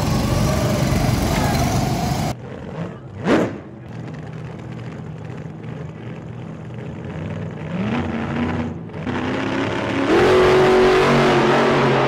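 Go-kart engines: karts running past, then engines idling in the pit lane, one rising in pitch as the kart pulls away and holding a louder, steady note near the end.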